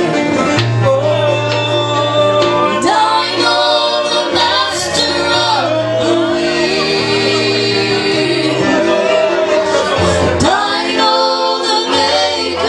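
Live gospel music: singing over band accompaniment, with a bass line holding long low notes that change every second or two.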